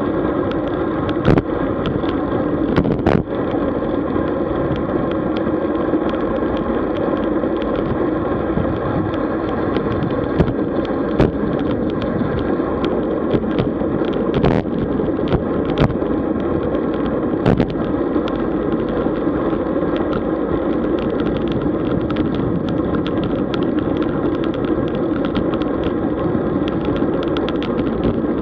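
Road bicycle riding on tarmac: a steady rush of road and wind noise with frequent small clicks and rattles.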